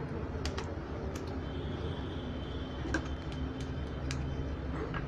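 Scattered light clicks and taps of hands handling small plastic parts, fitting a repaired circuit board back into a power adapter's plastic case, over a steady low background rumble.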